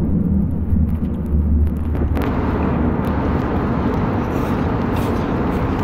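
Steady low rumble of an Airbus A320neo's cabin: engine and airflow noise, with a broader hiss filling in from about two seconds in.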